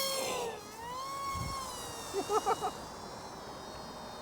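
Whine of the small brushless motor and pusher propeller of an Eachine mini F-22 Raptor RC foam jet in flight. Its pitch dips about half a second in, rises again, then holds steadier and fainter. A few short, sharp blips sound about two seconds in.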